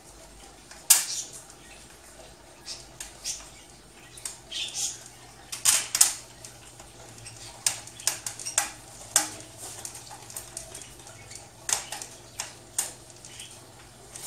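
Irregular metallic clicks and clinks from the Roma folding rollaway bed's metal frame being handled, the loudest about a second in and two close together around six seconds in.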